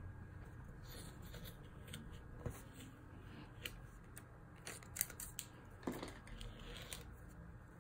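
Washi tape rolls handled and tape strips peeled off a wooden board: faint light rustling and scattered clicks, the sharpest about five seconds in.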